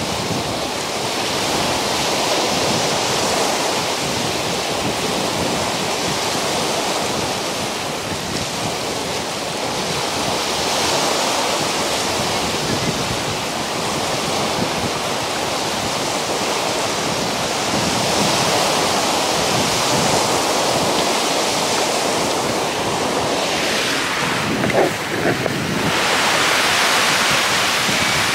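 Choppy, wind-driven lake waves breaking and washing over a rocky shore, with strong wind buffeting the microphone.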